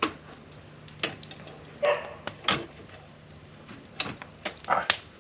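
Metal stove doors being shut and latched: a series of sharp clicks and knocks, some with a short metallic ring.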